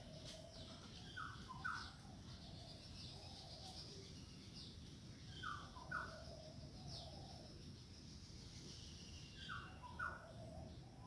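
Birds calling: a pair of short falling notes comes three times, about four seconds apart, over faint higher chirping from other birds.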